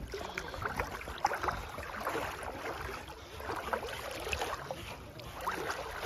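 Water splashing and lapping in irregular small splashes as two chow chows paddle through shallow sea water close by.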